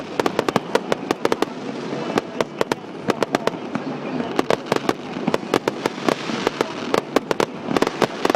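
Fireworks going off in a rapid, irregular string of sharp bangs and crackles, several a second, over a continuous haze of overlapping reports.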